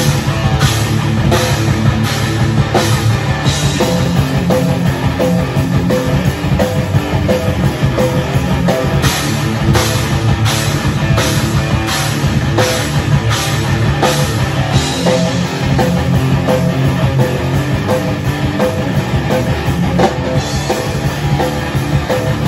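A rock band playing heavy rock: electric guitar over a drum kit beating out a steady rhythm with regular cymbal hits.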